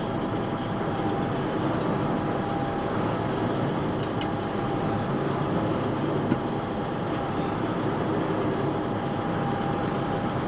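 Diesel engine of a 32-tonne, 9-cubic-metre concrete mixer truck running steadily at a crawl, heard from inside the cab, with a faint whine that comes and goes.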